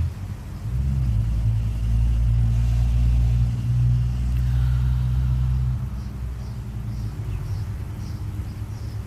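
Low, steady rumble of a motor vehicle's engine, which drops off about six seconds in. After that a faint insect chirps about twice a second.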